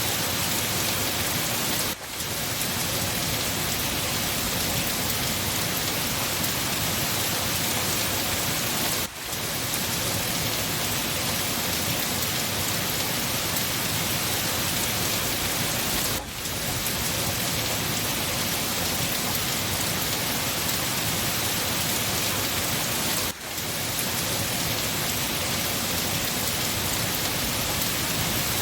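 Steady rain falling, a dense even hiss, broken by a brief dip in level about every seven seconds.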